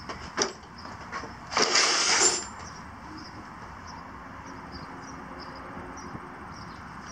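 A plastic tool case handled and pulled across a concrete floor: a couple of clicks, then one loud scrape of under a second about two seconds in.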